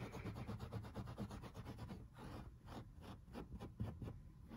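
Fingers scrubbing the pile of a SmartStrand carpet back and forth, agitating a stain to work it out. The strokes come quickly, about five a second, then slow down and space out about halfway through.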